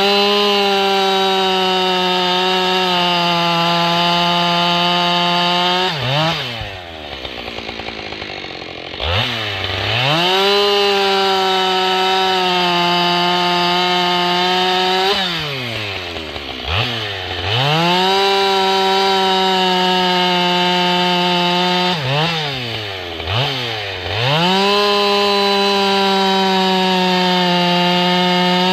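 Two-stroke chainsaw bucking logs: four cuts of about five seconds each at full throttle, the pitch sagging slightly as the chain bites into the wood. Between cuts it drops back to idle, with quick throttle blips.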